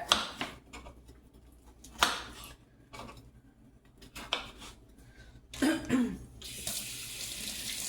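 Kitchen dishes and utensils knocking and clinking a few times, the loudest about two seconds in. A short cough about six seconds in, then a kitchen tap starts running near the end.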